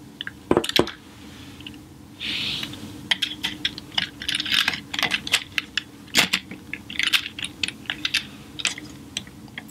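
Hasbro Transformers Combiner Wars plastic figures clicking and clacking as they are slotted together into the combined Bruticus: a run of sharp, uneven clicks with a few short rubbing slides of plastic on plastic.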